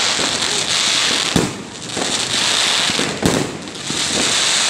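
Aerial fireworks going off overhead: a dense, continuous crackle of bursting stars, with two sharp bangs about one and a half and three and a quarter seconds in.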